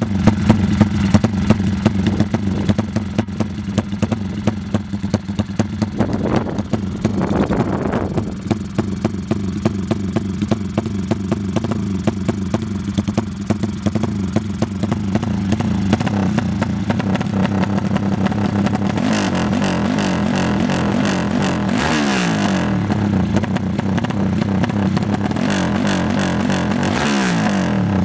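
Yamaha RX-King two-stroke motorcycle engine running under way, the revs rising in bursts and the pitch dropping twice as the throttle is closed, about two-thirds of the way through and near the end.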